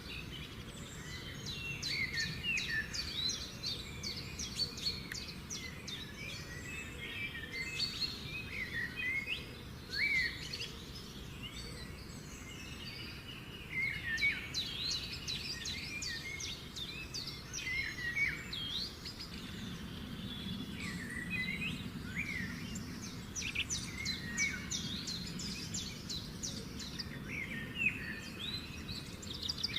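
Several songbirds chirping and singing together, overlapping quick trills and short rising and falling whistles, over a steady low background noise.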